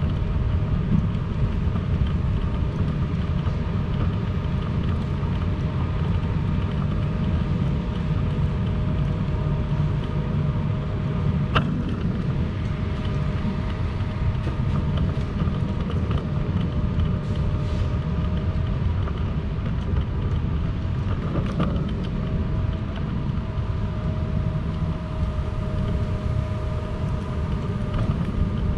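City street ambience: a steady low rumble with a constant humming tone over it and a few faint clicks.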